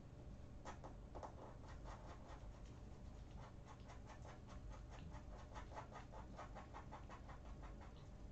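Faint, rapid scratching from a kitten, about five soft strokes a second, keeping up for most of the time.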